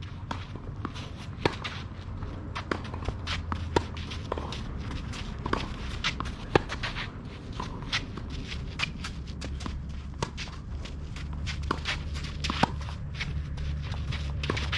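Players' footsteps and shuffling slides on a clay tennis court: many short gritty scrapes and steps, with a few louder sharp knocks among them, over a steady low rumble.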